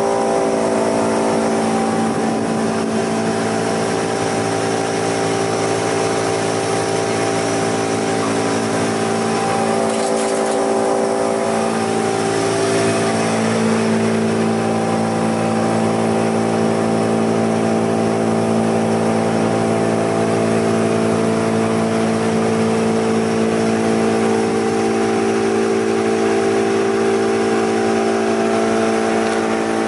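Vecoplan 35/8/2V wood chipper-shredder just started and running empty. Its electric drive and rotor settle at full speed within the first second, then give a loud, steady hum made of several tones.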